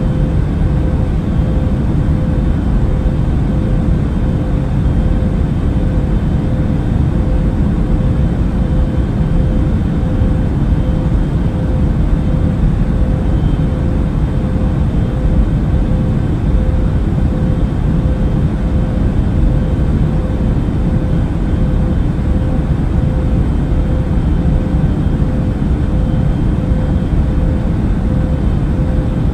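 Steady airplane cabin noise in flight: a deep, even rumble of engines and airflow with a constant mid-pitched hum over it.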